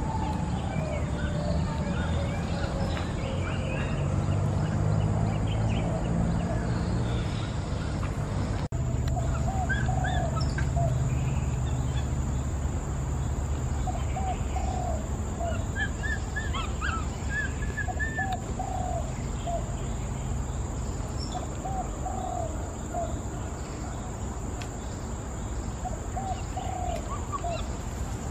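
Short chirping bird calls repeating every second or two over a steady low rumble of outdoor background noise.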